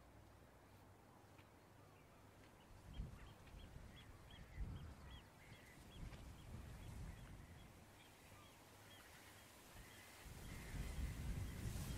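Faint outdoor ambience of wind rumbling on the microphone in gusts, with birds calling: a long run of short, high repeated notes, several a second, through the middle, and the wind rising near the end.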